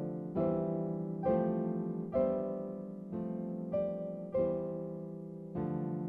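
Slow, gentle piano music, a note or chord struck about once a second and left to ring and fade.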